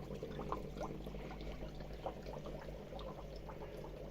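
Aquarium water bubbling and trickling as the HiaYang HY-203 pump pushes water out through holes in an upside-down bottle, over the pump's steady low hum.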